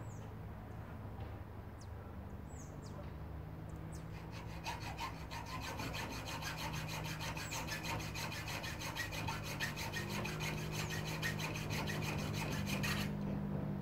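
Rapid, evenly paced rasping strokes of a hand tool worked on an object held in the hands. They start about four and a half seconds in and stop suddenly near the end.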